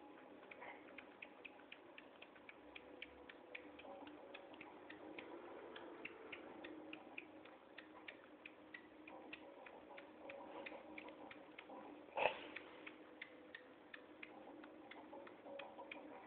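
Faint quick clicking, about three clicks a second, with one louder knock about twelve seconds in.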